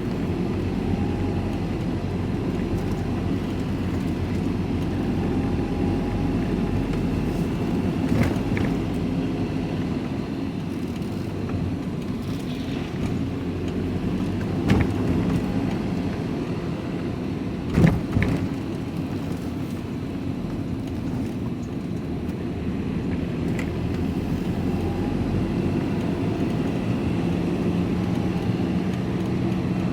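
Steady engine and road noise heard inside a lorry's cab while it drives along, with a few brief knocks, the loudest about 18 seconds in.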